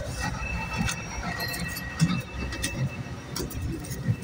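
Footsteps and scattered knocks as a passenger climbs the stairs inside a double-decker bus, over the bus's low steady rumble. A faint steady high tone runs through the middle.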